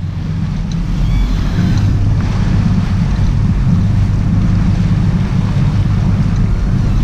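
Sportfishing boat's engines running with a steady low rumble, under rushing, churning water and wind buffeting the microphone.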